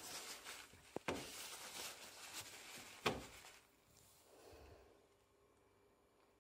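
Rustling handling noise with two sharp knocks, the second near three seconds in the loudest, as a small wooden bowl is picked up and handled; it goes quiet after about four seconds.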